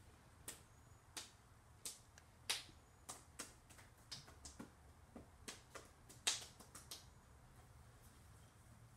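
Irregular light taps and clicks of hands handling carved zucchini flowers and setting them down on a plastic cutting board, two of them louder. The clicks stop about seven seconds in.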